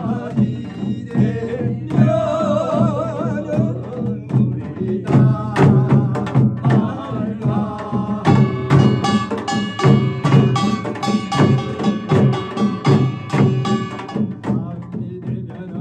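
Korean pungmul binari: a man's voice chants with a wide vibrato over a steady beat of barrel drums (buk) and janggu for about the first four seconds. From about five seconds in, a small brass hand gong (kkwaenggwari) joins with rapid ringing strikes over the drums, densest until about fourteen seconds, then easing off.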